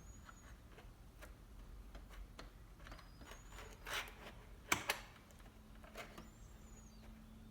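Light scattered clicks and scrapes of a bent coat-hanger wire being worked in a door gap against a deadbolt, with louder knocks about four and five seconds in.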